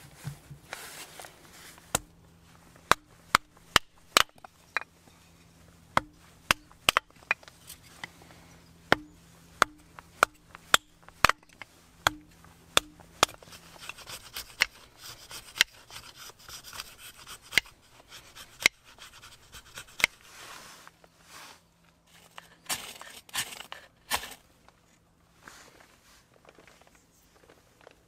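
A run of sharp wooden knocks at irregular spacing, about one a second, then a steel knife blade scraping and shaving thin curls off a stick of dry wood.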